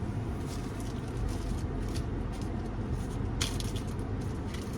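Steady low road-and-engine rumble inside a moving car, with light rustling and clicks of small items being handled and one sharper rustle about three and a half seconds in.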